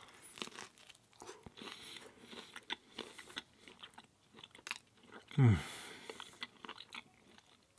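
Close-up chewing of thin, cracker-like gluten-free pizza crust, with scattered crisp crunches. About five seconds in the eater gives a short hum that falls in pitch, followed by a brief breathy hiss.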